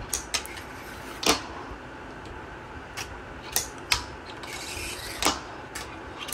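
A fingerboard rolling and scraping along a waxed ledge obstacle, with several sharp clacks as the board pops and lands, the loudest a little over a second in and about five seconds in.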